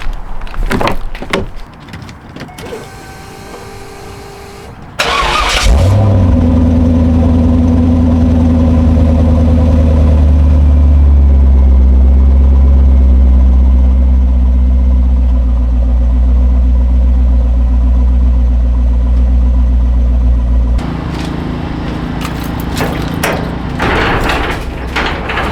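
A car's V8 engine is started about five seconds in with a sudden loud burst, then settles into a steady idle that eases slightly lower; about 21 s in it becomes quieter. Clicks and knocks come before the start and near the end.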